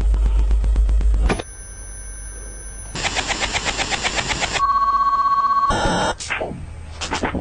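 An electronic sound collage with abrupt cuts: a heavy low buzz, then steady electronic tones, a fast rattling pulse about ten times a second, a pulsing beep, a falling sweep, and short bursts near the end.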